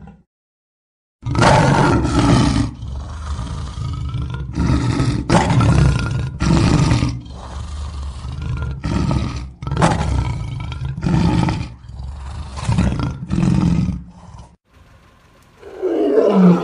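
Lion roaring: a long series of deep, loud roars, each about half a second long, coming a little under one a second, then stopping abruptly.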